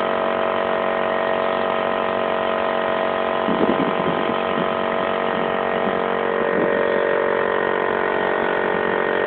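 Air compressor running steadily with a constant hum, pumping air into a bottle water rocket.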